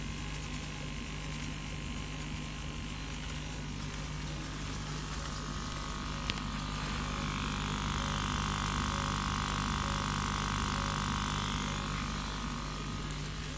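Kamach 1290 laser cutting machine running: a steady hum throughout, with a higher whine that rises in about halfway and dies away near the end. A single sharp click about six seconds in.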